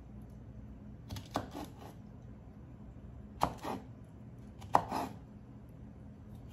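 Kitchen knife slicing through a bunch of asparagus spears onto a wooden cutting board, in three short bursts of cuts: each a sharp knock of the blade on the board followed by a few lighter clicks.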